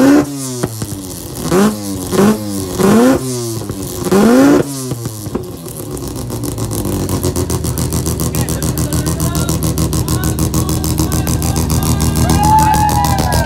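A classic Mazda sedan's engine is revved hard about five times in quick succession, each rev rising and falling sharply in pitch. It then settles into a loud, lumpy, pulsing idle. The engine is being free-revved in a rev competition, with its exhaust measured at the tailpipe.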